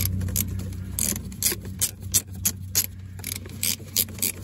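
Ratchet wrench clicking in short rasping runs, about three to four clicks a second, as a ball-joint nut on the front suspension is tightened.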